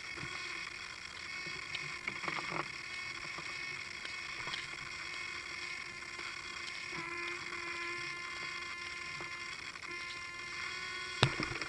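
Align T-Rex 600 Pro radio-controlled helicopter sitting on the ground with its drive running slowly, giving a steady whine of several high tones over a lower hum that shift in pitch a few times. A single sharp knock near the end is the loudest sound.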